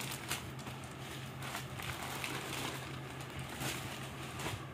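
Faint rustling of suit fabric being moved and spread out by hand, with a few soft taps, over a steady low hum.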